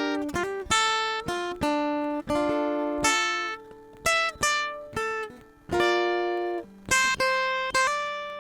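Acoustic guitar playing a slow tune of plucked notes and chords, each note starting sharply and ringing out as it fades.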